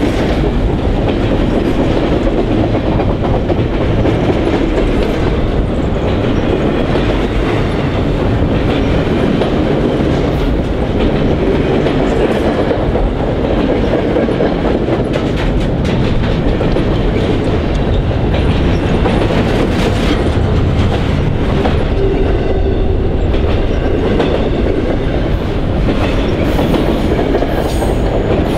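Freight train's flatcars rolling past close by: a steady, loud rumble of steel wheels on the rails, with many clicks and clacks as the wheels cross the rail joints.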